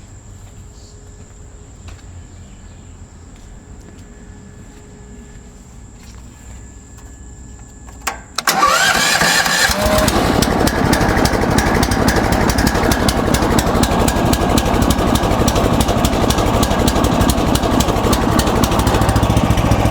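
MechMaxx SM32 sawmill's engine starting about eight seconds in, catching with a brief rise in pitch and then running loud and steady. Before it starts, insects buzz with a steady high tone.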